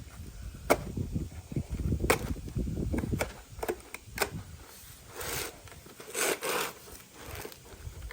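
A cardboard package being handled and opened by hand: rough handling noise with several sharp clicks and knocks in the first few seconds, then two short bursts of rustling or tearing about five and six seconds in.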